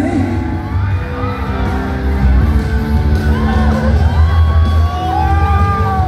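Live pop concert music with a heavy bass beat and held instrumental notes, with fans screaming and whooping over it, the screams strongest in the second half.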